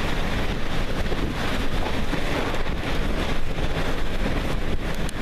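Strong wind blowing across the microphone: a loud, steady rushing noise with no let-up.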